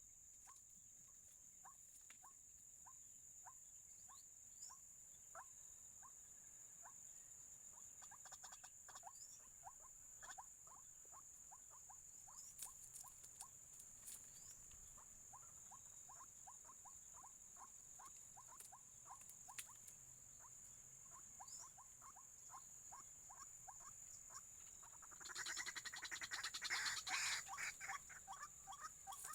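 Faint outdoor animal chorus: a steady high-pitched insect drone, with short rising chirps repeated about two to three times a second. Both grow louder and busier in the last few seconds.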